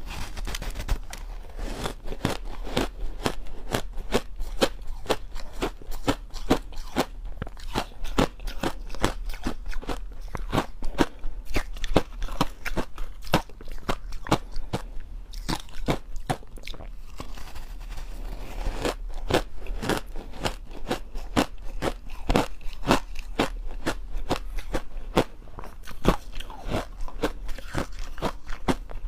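Crushed ice being bitten and chewed, a dense run of crisp crunches with a slightly sparser stretch a little past the middle.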